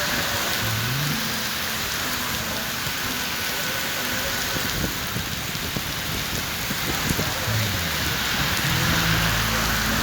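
Heavy rain falling steadily on a city street, with low traffic rumble underneath.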